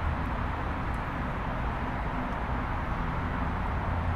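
Steady rushing background noise with a low hum underneath, with no distinct clicks or knocks.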